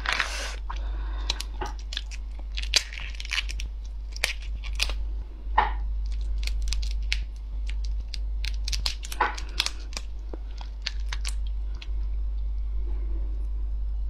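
Shell of a giant black tiger prawn being pulled and peeled apart by hand: a run of short cracks and crackles with a few longer tearing scrapes, over a steady low hum.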